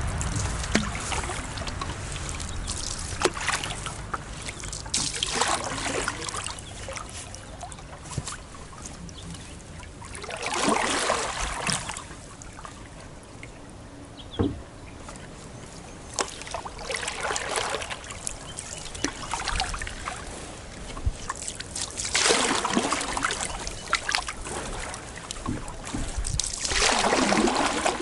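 Canoe paddle strokes in calm water: a swish of water about every five seconds, with trickling and dripping in between.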